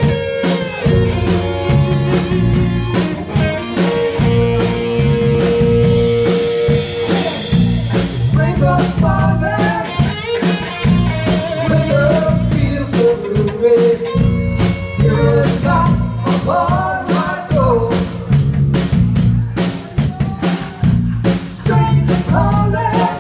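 Live rock band playing a song: drum kit keeping a steady beat under electric guitars and keyboard, with a long held note about four seconds in. Vocals come in about nine seconds in.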